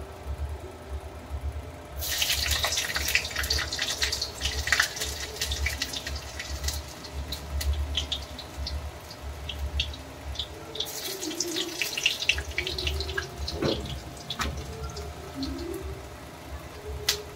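Tap water running into a kitchen sink, with clinks and clatter of items being rinsed under it. The flow starts a couple of seconds in, stops briefly past the middle, starts again and cuts off near the end.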